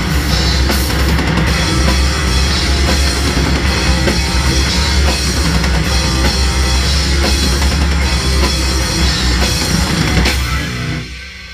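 Metal band playing loud live, with the drum kit to the fore. The song ends about ten and a half seconds in, and the last chord rings down.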